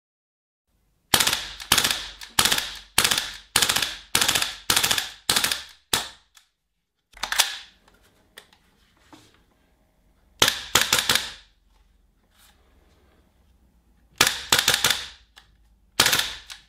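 GHK 553 gas blowback airsoft rifle firing, each shot a sharp crack with the clack of the cycling bolt. It starts with a string of about ten single shots roughly half a second apart, then one more shot, then short rapid bursts.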